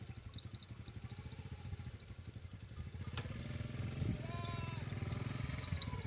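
A small engine running steadily with a low, pulsing rumble. A sharp click comes about three seconds in, and a short call that rises and falls comes just after the middle.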